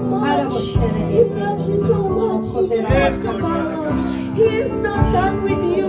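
Electronic keyboard playing slow held chords, with a new chord struck about a second in, again about three seconds in and again near the end, while a voice rises and falls above it.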